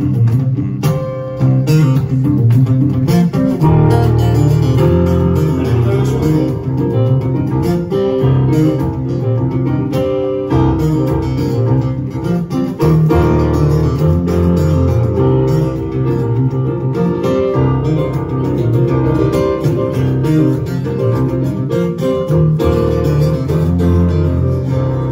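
Acoustic guitar played live, the instrumental opening of a song without vocals.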